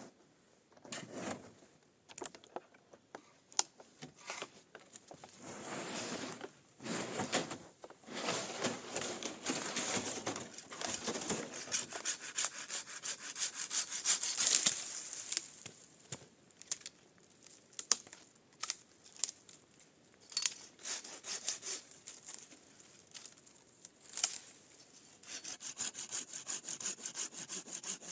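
Wood being worked by hand, with irregular scraping and knocks. Near the end comes a steady run of quick back-and-forth strokes, like a hand saw cutting through wood.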